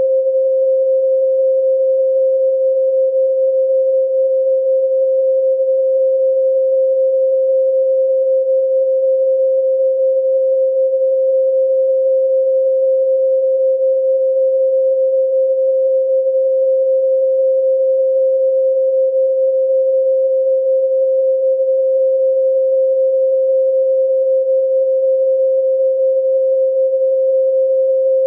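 A steady 528 Hz pure sine tone, one unchanging pitch held throughout, with no other sound.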